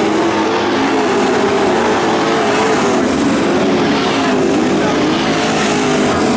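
Race truck engines running hard on a dirt oval, several engine notes rising and falling as the trucks pass.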